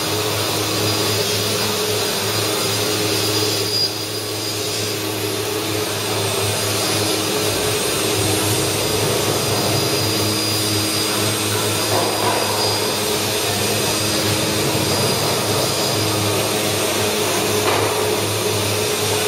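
5-axis CNC wood router running: a steady machine whine with hiss as its spindle carves a wooden mould. There is a brief dip in loudness about four seconds in.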